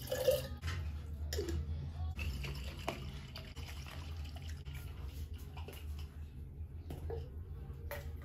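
Tap water running and dripping into a plastic bottle, with several sharp knocks of the bottle being handled and shaken, over a steady low hum.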